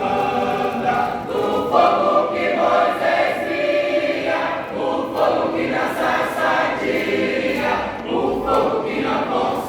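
Church choir singing a gospel song, many voices together in harmony.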